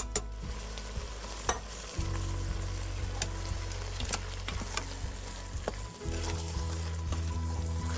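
Food sizzling in a hot Instant Pot inner pot on sauté, with thick tomato-based Sloppy Joe sauce just poured over sautéed vegetables and meatless crumbles. It is an even hiss with scattered small pops, over steady low background music.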